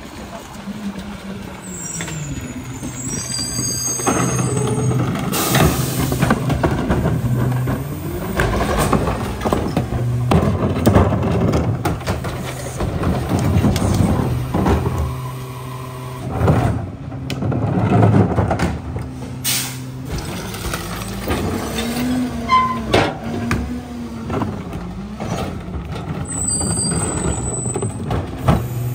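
Freightliner M2 McNeilus rear-loader garbage truck at a curbside stop: the diesel engine runs and rises and falls under the hydraulic packer's load, with sharp air-brake hisses and the knocks of wheeled carts being tipped into the rear hopper.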